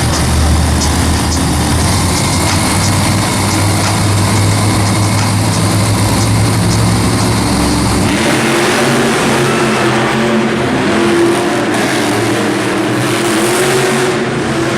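Monster truck engines running and revving loudly. About eight seconds in, the sound changes abruptly: the deep rumble drops away and a wavering engine pitch takes over.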